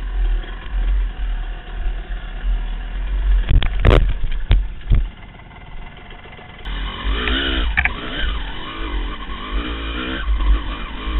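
Two-stroke dirt bike engine running over rocky ground, with a run of sharp knocks and clatter about four seconds in as the bike goes down, then a quieter spell. In the second half an engine revs hard, its pitch rising and falling.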